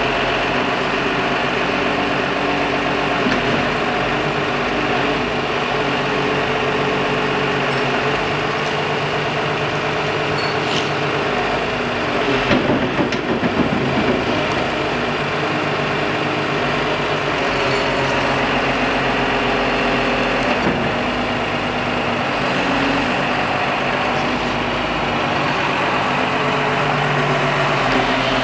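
Hyundai Robex 250NLC-3 crawler excavator's diesel engine running steadily while its hydraulics work the boom, arm and bucket. A louder, rougher stretch comes near the middle.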